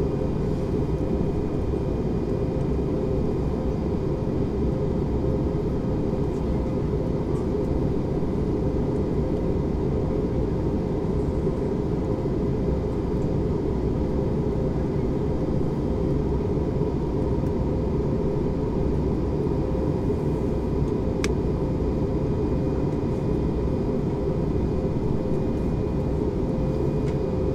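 Airbus A321neo in flight, heard from inside the cabin: a steady rush of engine and airflow noise, deepest and strongest in the low range, with a few faint steady tones running over it.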